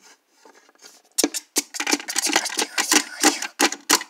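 Plastic toys handled right by the microphone: after about a second of faint rustling, a rapid, loud run of clattering knocks, several a second.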